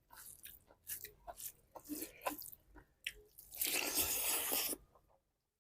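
A person chewing food close to the microphone, with short crunches and wet mouth clicks, then a denser noisy stretch of about a second. The sound cuts off abruptly near the end.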